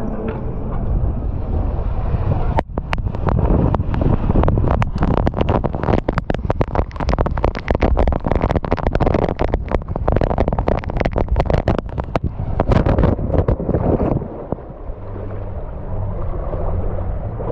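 Rush of water and air during a fast ride down a steep water slide, with spray crackling against the rider's camera, then a splash into the runout about fourteen seconds in, after which the water sound turns lower and duller.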